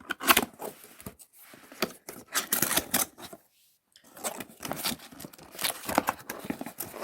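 Cardboard box of a power-tool kit being opened and its packaging handled: irregular scraping, rustling and knocks, with a short pause a little past halfway.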